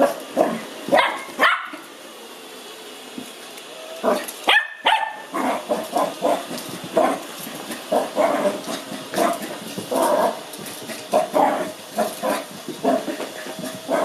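Lhasa Apso puppy barking and grumbling in quick short bursts, two or three a second, with a lull about two seconds in, over the steady whir of an Ecovacs Deebot robot vacuum running on carpet.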